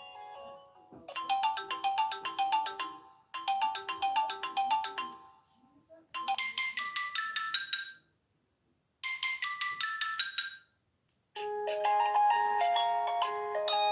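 Samsung Galaxy Tab 3 Lite tablet playing its built-in ringtones one after another through its small speaker: short electronic melodies of bright, chime-like notes, each stopping abruptly with short gaps between them. About eleven seconds in, a new, fuller tune starts with a steady low note under it.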